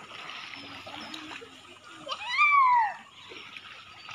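Shallow sea water splashing and lapping as children swim. About two seconds in comes a loud, high-pitched shout that rises and then falls in pitch, lasting under a second.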